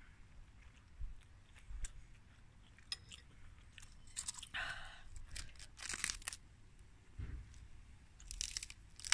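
Close chewing, then several short, crisp crackles as a fresh lettuce leaf is picked up and torn apart by hand.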